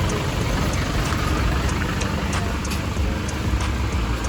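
Steady low rumble of a road vehicle in motion, with a few faint ticks.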